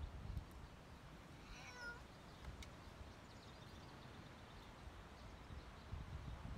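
A domestic cat meows once, a short call about two seconds in, over a faint low background rumble.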